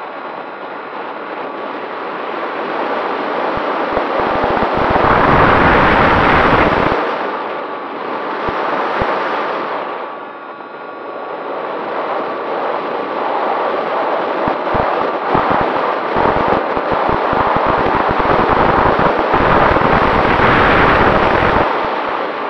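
Airflow rushing and buffeting over a radio-controlled model plane's onboard camera microphone, swelling loud twice as the plane dives and rolls, with a faint steady motor whine underneath.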